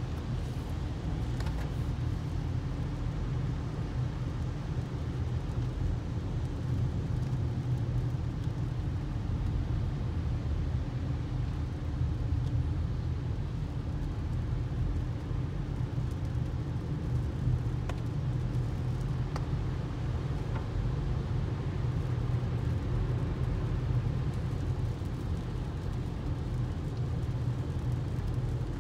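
Steady low rumble of a car's road and engine noise heard from inside the cabin, driving on a rain-wet freeway.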